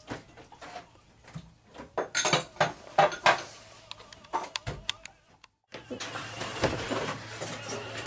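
Scattered knocks and clatter of dishes and utensils being handled at a galley sink and counter. After a short break it changes to a steady low hum.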